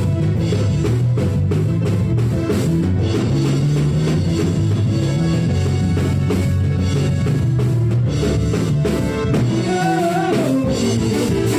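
Church band music: a drum kit keeps a steady beat over sustained bass notes.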